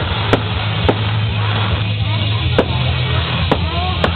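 Fireworks banging at a display, five sharp cracks about a second apart, over music from a loudspeaker system with a steady bass.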